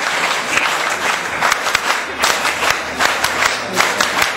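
Audience applauding: many people clapping together in a dense patter, with a few sharper claps standing out.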